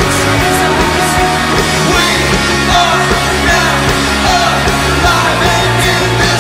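Rock music playing as a soundtrack, with a singing voice over a steady bass line that changes note about every two to three seconds.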